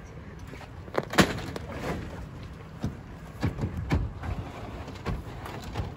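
Knocks and clatter from a pop-up camper's pull-out bed being pulled back out on its metal frame, with a sharp bang about a second in and smaller knocks through the middle and near the end.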